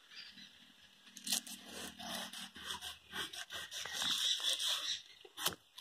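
A crumpled ball of aluminium foil crinkling and scraping against the chrome trim of a car tail lamp in quick, irregular rubbing strokes, scrubbing rust off the nickel-chrome plating. A faint low hum runs underneath for the first couple of seconds.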